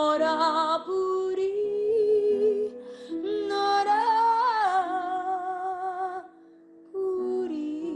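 A woman singing a slow Neapolitan-language song over a musical accompaniment, holding long notes with vibrato. The music drops out briefly about six seconds in, then comes back.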